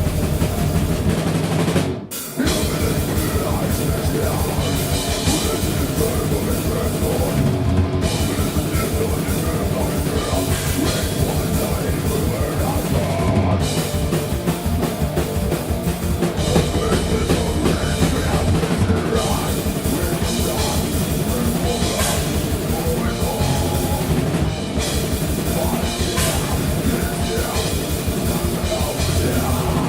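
Death metal band playing live: distorted guitars and bass over rapid, driving kick-drum strokes, with a brief stop about two seconds in before the full band comes back in.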